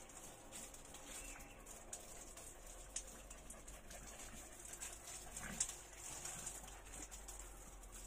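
A dog making faint small noises, with scattered soft clicks and taps, a little busier about halfway through; otherwise quiet.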